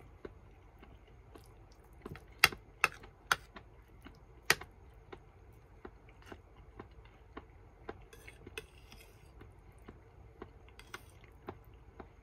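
A metal spoon clinking and scraping against a ceramic plate as food is scooped up, with four sharp clinks a couple of seconds in and lighter ticks after, along with chewing.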